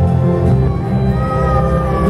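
Soft, slow instrumental backing music played over a stage sound system, a sustained low chordal bed with a thin high melody line that slides gently in pitch from about a third of the way in.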